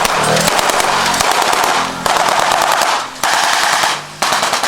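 Rapid automatic gunfire in long bursts, breaking off briefly about two, three and four seconds in.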